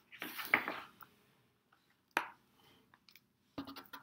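Pages of a hardcover picture book being turned and handled: a rustling swish in the first second, a sharp tap about two seconds in, and a few quick clicks near the end.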